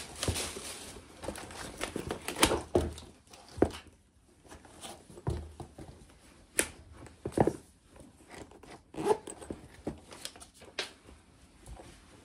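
Handling noises: low rustling and crinkling broken by about ten irregular sharp clicks and knocks, roughly a second apart.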